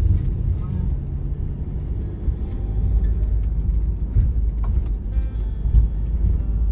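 Ford Transit Custom camper van driving, a steady low road rumble.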